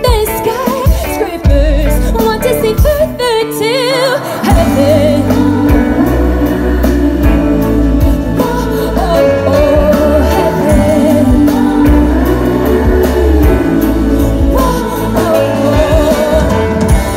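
Live pop band playing through a concert PA: a woman singing over electric guitar and drums. Just before 4 seconds in the deep bass drops out briefly under the voice, then the full band comes back in.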